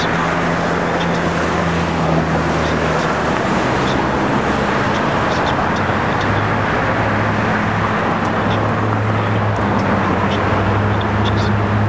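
Road traffic: a steady rush of car noise with a low engine hum, as cars pass along the road.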